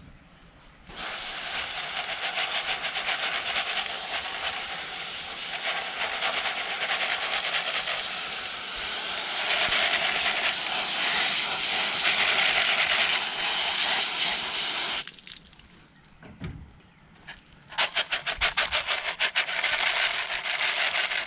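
Garden-hose spray nozzle spraying water onto a colander of lead air-rifle slugs and pellets, a steady hiss that starts about a second in and stops after about fourteen seconds, rinsing off the lead debris. Near the end comes a few seconds of quick rhythmic swishing as the colander of wet pellets is shaken.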